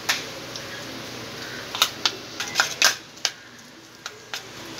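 A spoon clicking and scraping against a small bowl as garlic butter with herbs and chilli flakes is stirred: irregular clicks, with a quick run of them a couple of seconds in.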